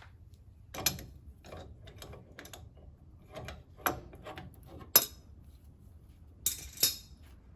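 Hand tools clinking and clicking on metal while the cotter pin is pulled and the castle nut on the front wheel spindle is worked loose, with about six sharper metallic clinks among lighter taps.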